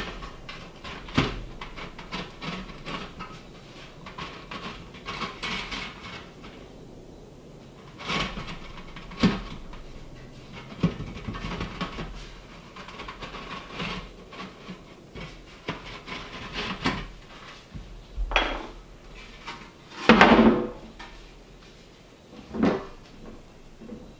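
Black sheet-steel stovepipe section turned on end against a wooden marking block on an OSB floor while a line is scribed around it: irregular scraping, rubbing and light metallic clicks of the pipe on the board, with three louder knocks near the end as the pipe is moved.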